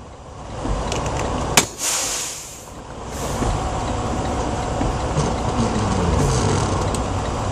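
Idling truck engine rumbling steadily, with one sharp click about a second and a half in, followed by a short hiss. A low tone slides downward near the end.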